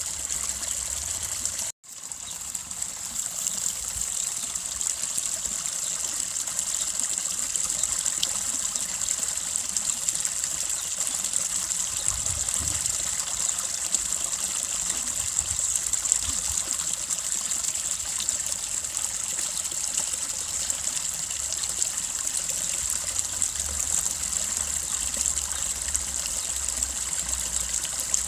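Small babbling brook: water trickling and splashing steadily over stones. The sound cuts out for an instant about two seconds in and fades back in.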